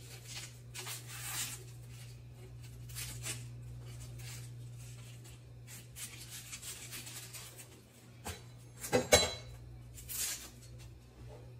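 Kitchen handling sounds: soft rustling and a few clinks and knocks of utensils or cookware, the sharpest knock about nine seconds in, over a steady low hum.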